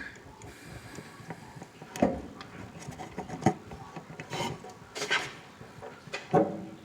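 Furnace wires and their plastic connectors being handled: scattered light clicks and rubbing, with sharper knocks about two seconds in, about three and a half seconds in and near the end.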